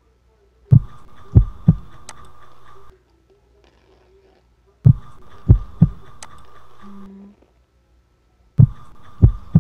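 Edited-in suspense sound effect of low, heartbeat-like thuds. The thuds come in groups of two or three over a faint steady hum, and the groups repeat three times about four seconds apart, with near silence between them.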